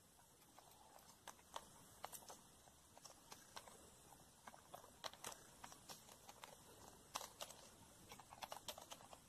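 Near silence with faint, irregular small clicks and taps: plastic toy figurines being picked up and set down by hand.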